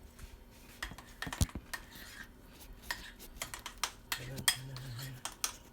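A metal kitchen utensil clicking and clinking against dishes, a string of sharp irregular taps, as of batter being stirred or handled. A low voice murmurs near the end.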